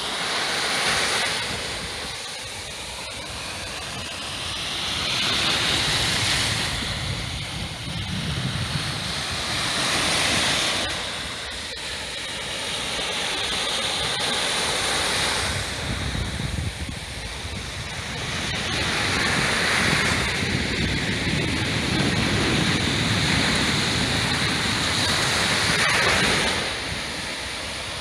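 Small waves breaking and washing up a sandy beach, the surf swelling and fading about every four to five seconds.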